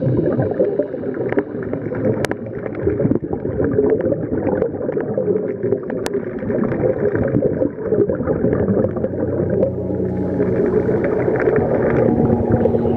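Muffled underwater rumble and bubbling from a scuba diver's regulator as he exhales, picked up by a camera underwater, with scattered small clicks.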